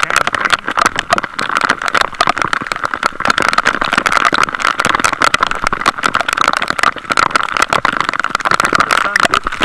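Heavy rain heard from a moving bicycle: a dense crackle of raindrops striking the camera and its microphone, mixed with wind noise, loud and unbroken throughout.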